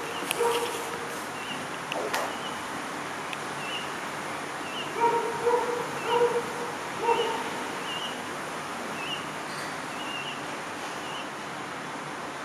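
A run of short, pitched animal calls, two at the start and about five close together in the middle, over faint high chirps that repeat about once a second.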